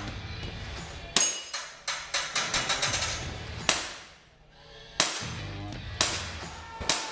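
Airsoft gun firing a string of shots at steel targets: sharp cracks and metallic clanks, some with a short ring, about one a second with a quick cluster early on and a brief lull near the middle. Background music with a steady low beat plays underneath.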